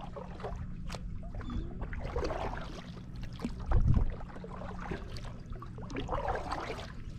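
Kayak paddle strokes: the blade dipping and splashing water, with trickling drips, over a low rumble. A short low thump comes about four seconds in.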